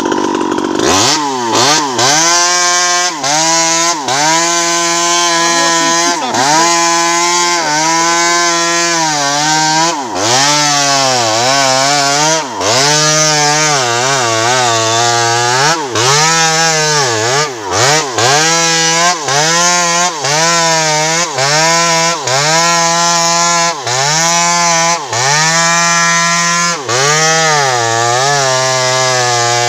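Home-assembled 52cc two-stroke chainsaw running at high revs while cutting a tree during felling. The engine note dips and climbs back over and over, roughly every one to two seconds, as the chain loads up in the wood and frees again.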